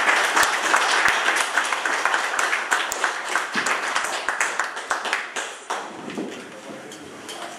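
Audience applauding, thinning out and dying away about six seconds in.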